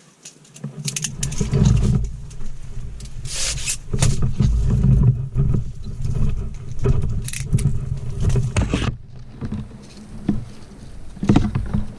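Handling noise on a shoulder-mounted camera as its wearer walks: an uneven low rumble of gear and clothing rubbing against the microphone, with scraping rustles now and then.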